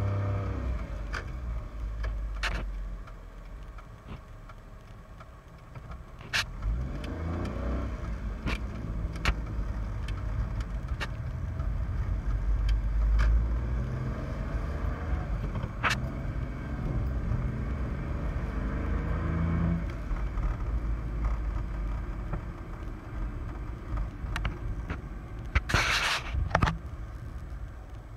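Car engine and road noise as heard from inside the moving car. The engine pitch rises and falls as it pulls away and changes speed, with a few scattered sharp clicks and one brief loud noise near the end.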